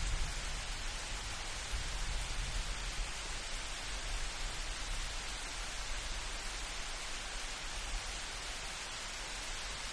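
Steady hiss of light rain, with a low rumble underneath that is a little stronger in the first few seconds.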